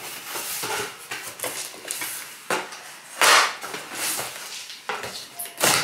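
A cardboard carton and its packaging being handled and opened: rustling and scraping, with two louder short rasping tears about three seconds in and near the end.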